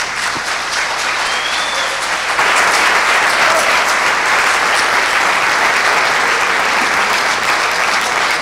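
A hall audience applauding, the clapping swelling about two seconds in and then holding steady.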